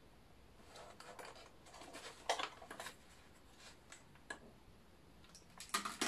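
Faint, scattered clicks and light knocks from handling a clamp multimeter, its test leads and the plastic housing of an opened vacuum cleaner, the loudest about two seconds in and a few more near the end.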